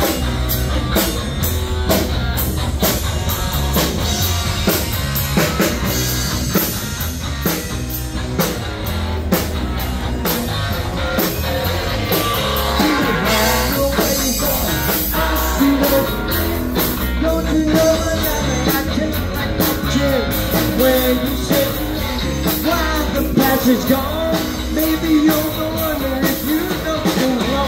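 Live rock band playing: electric guitar over a drum kit and bass guitar, with a steady beat.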